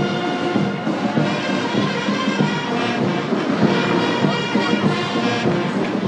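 Military brass band playing a ceremonial tune for the presidential salute.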